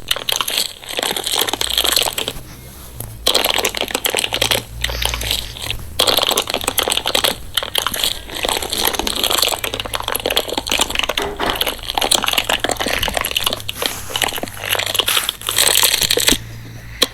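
Slime being squeezed and pressed by hand, a dense crackling and clicking that pauses briefly a couple of times.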